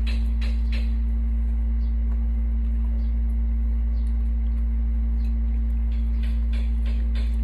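Background music: a steady low droning note under a ticking beat. The beat drops out about a second in and comes back near the end.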